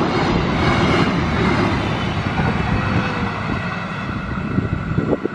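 Passenger train's coaches running past at speed, the wheel-on-rail rumble fading steadily as the train draws away. A few short thumps come near the end.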